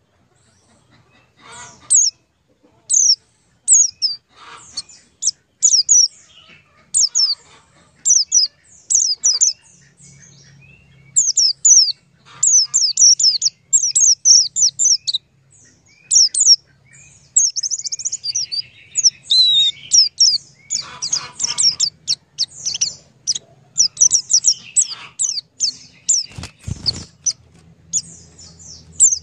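Small birds chirping: many short, high chirps that drop quickly in pitch, coming singly and in quick runs. A faint low hum runs beneath from about a third of the way in, and there is a brief low thud near the end.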